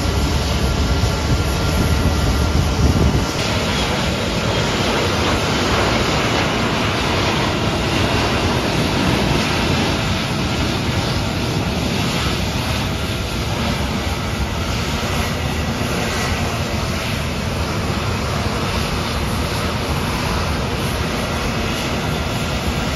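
Steady jet-aircraft noise on a wet airport apron as a Boeing 777 is pushed back by a tug. A deep low rumble underneath drops away about three seconds in.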